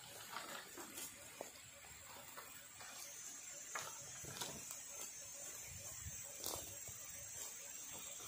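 Faint steady high-pitched drone with a few light clicks and knocks scattered through it.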